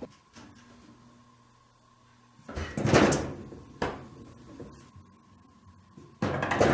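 Frosted-glass sliding door rattling in its wooden frame as a cat paws and pushes at it. There are two short loud clatters, about three and a half seconds apart.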